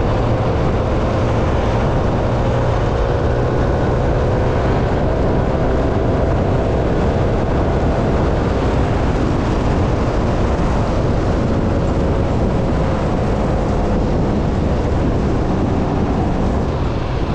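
Motorcycle under way: a steady engine drone buried in heavy wind and road noise.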